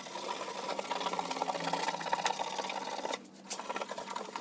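Abrasive Scotch-Brite pad scrubbing the bare aluminum of a snowmobile tunnel by hand in quick strokes, a rasping rub. It breaks off briefly about three seconds in and resumes for a moment. This is the scuffing step that knocks down the sanding-sponge scratches before polishing.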